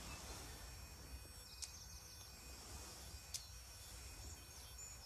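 Quiet outdoor ambience with faint birdsong and a soft tick about every second and three-quarters, the regular pulse of the snail fence's electric fence energiser.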